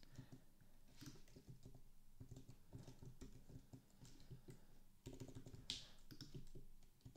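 Faint typing on a computer keyboard: a quick, uneven run of keystrokes, with a short break about five seconds in.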